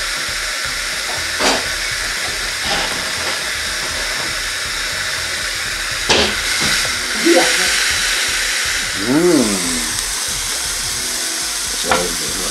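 Beef steak sizzling on a hot Chefman panini grill press: a steady hiss of frying and steam. A few sharp clicks and clinks sound as the lid is lifted and a fork works on the meat, about six seconds in. A short rising-and-falling tone comes near nine seconds.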